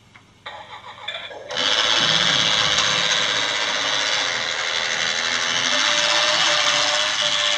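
Battery motor of a LEGO Duplo Intelli-Train whirring as the toy train runs around its plastic track. It starts faintly about half a second in and becomes loud and steady about a second and a half in.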